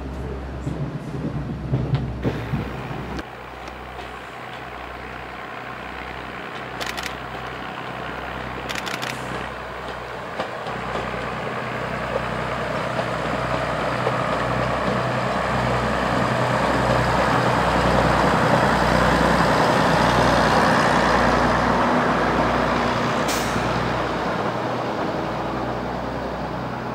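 A Class 108 Derby Lightweight diesel multiple unit's underfloor diesel engines running as the two-car train passes, the sound building to its loudest about two-thirds of the way through and then fading as it moves away. The first few seconds carry the sound from on board the unit.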